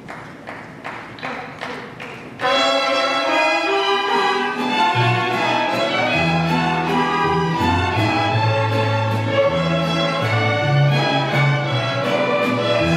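School mariachi ensemble playing: after a few short sharp strokes at about two a second, a section of violins comes in loudly about two and a half seconds in, and a low bass line joins a couple of seconds later.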